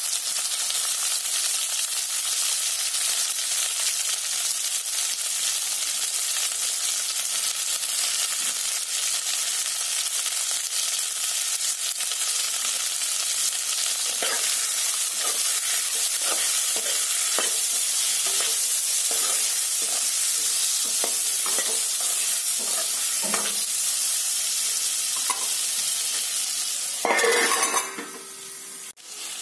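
Onions and green capsicum sizzling in hot oil in a steel kadhai, with a metal spoon scraping and stirring through them in short strokes from about halfway on. Near the end a steel plate is put over the kadhai as a lid with one loud metallic clatter.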